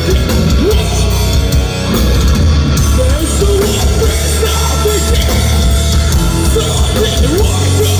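Metalcore band playing live: electric guitars, bass and drums, loud and continuous, with a vocalist singing over them.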